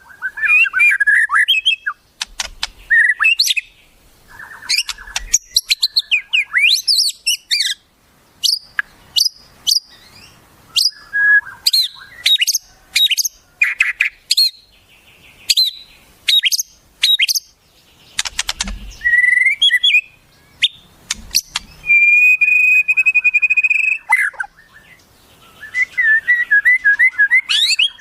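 Wild songbird calls in quick succession: sharp whistles, chirps and gliding notes, a held buzzy note about two-thirds through, and a fast run of repeated notes near the end.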